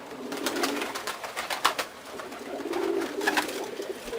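Domestic pigeons cooing in low, wavering phrases, one near the start and another around three seconds in, with scattered sharp clicks and taps from the birds in the loft.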